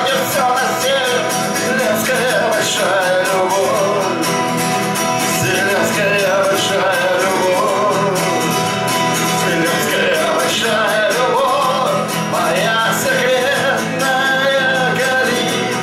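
Live acoustic guitar strummed steadily, with a man's voice singing along.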